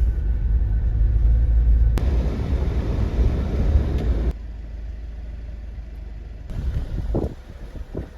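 Vehicle driving on a dirt road, a steady low rumble of engine and tyres. It drops suddenly to a quieter, thinner rumble about four seconds in, with a few brief bumps of sound near the end.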